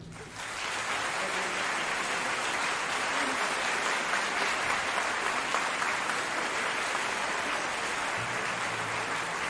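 Concert audience applauding steadily. Faint low sustained tones come in near the end.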